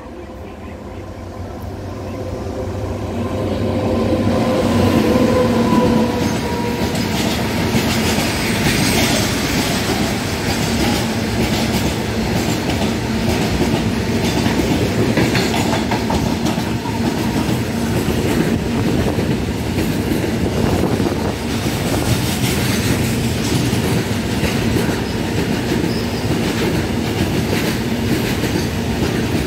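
WAG-9HC electric freight locomotive approaching and passing, growing louder over the first six seconds with a steady whine that fades as it goes by. Then a long goods train of covered wagons rolls past: a steady rumble of steel wheels on rail with quick clicking over the rail joints.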